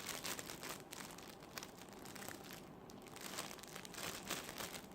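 Faint, irregular crinkling of a thin plastic bag being handled and closed around a squishy toy, sparser around the middle.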